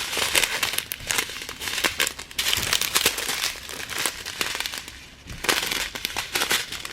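Plastic packets of diamond-painting drills crinkling as they are handled, a run of irregular crackles that eases off briefly about five seconds in.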